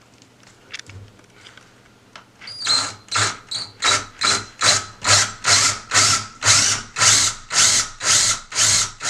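Power drill boring a knob hole through a cabinet door, starting about two and a half seconds in. Its sound rises and falls in quick, regular pulses, about three a second, as the bit cuts through the door.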